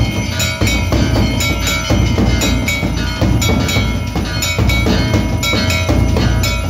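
Hindu temple aarti bells and drum beaten rapidly and without pause: a dense metallic clanging and ringing over a steady low drum beat, several strikes a second.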